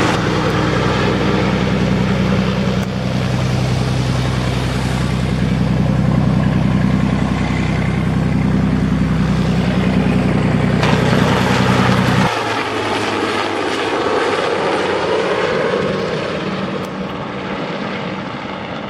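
Sikorsky S-76A twin-turbine helicopter in flight: a steady low drone from the rotors under a broad rushing sound. About twelve seconds in the low drone drops away suddenly, leaving the rushing sound, which fades as the helicopter flies off.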